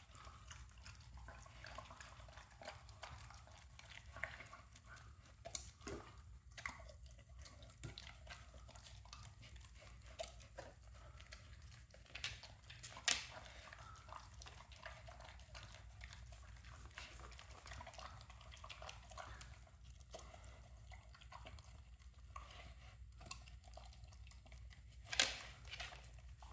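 A dog eating a meal of chicken and rice from a bowl: faint wet licking and chewing, with scattered sharper clicks, the loudest about halfway through and near the end.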